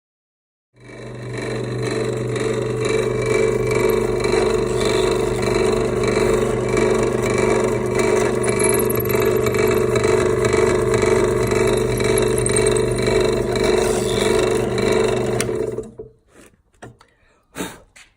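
Electric drill running steadily for about fifteen seconds while boring a hole through timber backed by a sacrificial board, then cutting off abruptly, followed by a few light knocks.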